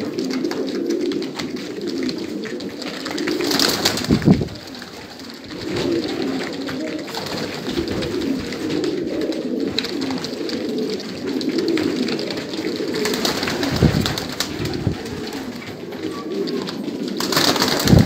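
Many domestic pigeons cooing together in an unbroken, overlapping murmur, with a few short rustling bursts, about four seconds in, around fourteen seconds and near the end.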